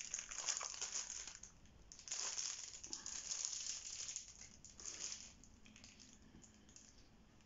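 Plastic packaging crinkling in several short bursts as it is handled, settling down after about five seconds.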